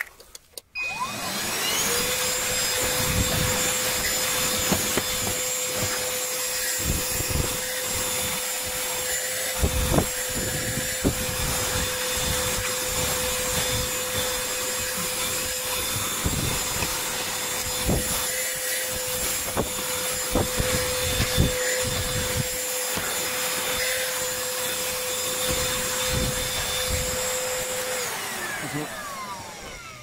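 Ferrex 20-volt cordless handheld vacuum switched on, its motor whining up to speed within about a second, then running steadily while the nozzle scrapes and knocks over car floor carpet. Near the end it winds down as it is switched off.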